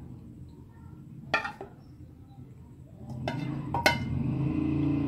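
A metal spoon clinks against the pan and bowl while white sauce is scraped out and spread over boiled macaroni in a nonstick frying pan. There are two sharp clinks, one about a second and a half in and one near four seconds, and a louder steady scraping through the last couple of seconds.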